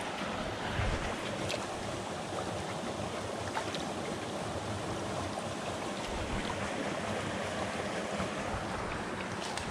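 Steady rush of running water from a small creek, with a few faint clicks.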